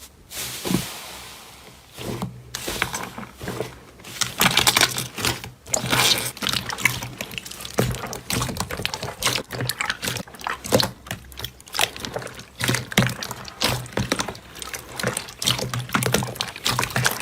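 Slime being squished and worked by hand, making many irregular wet clicks and pops.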